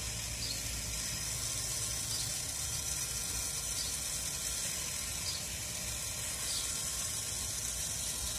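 Steady sizzling hiss from meat juices and fat dripping onto hot charcoal under a rotisserie-spit roast, with faint light crackles now and then over a low steady hum.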